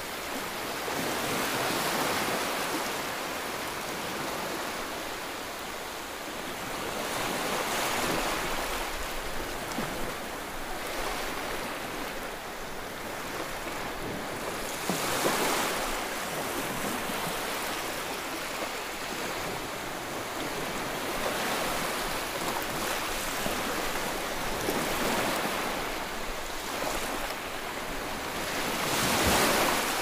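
Rough, churning waves breaking and surging against a concrete seawall, a continuous wash that swells into louder surges every several seconds, one of the loudest near the end.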